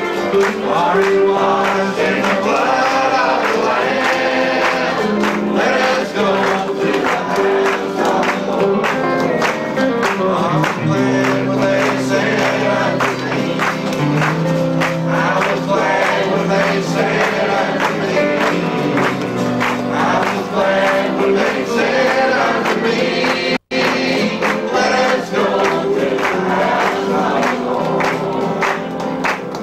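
Church congregation singing a gospel hymn together. The sound drops out for an instant about two-thirds of the way through.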